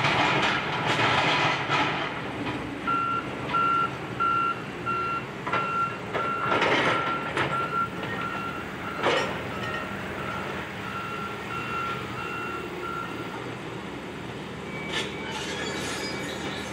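Back-up alarm on heavy demolition machinery, beeping evenly about two to three times a second. It starts about three seconds in and stops a few seconds before the end. Around it are the crunching and crashes of an excavator breaking up the building, with a metallic squeal near the end.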